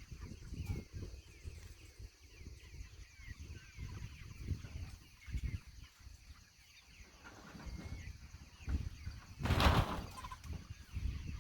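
Pasture-raised meat chickens clucking and peeping, many short calls overlapping, over low thumping. A brief loud rush of noise comes near the end.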